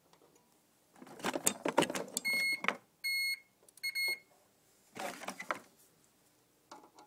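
Fire alarm control panel's fault buzzer beeping three times, each a steady high tone about half a second long: the panel reporting a fault on zone 2 after its circuit was broken during the wiring. Rustling and scraping of handled wiring and fittings comes before and after the beeps, loudest just before them.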